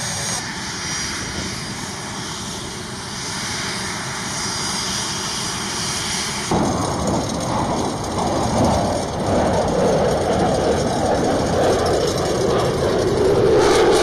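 A-10 Thunderbolt II's twin TF34 turbofan engines running on the ground, a steady rush with a high whine. About six and a half seconds in, the sound jumps to a louder, denser rush of the engines heard close beside the aircraft, growing a little toward the end.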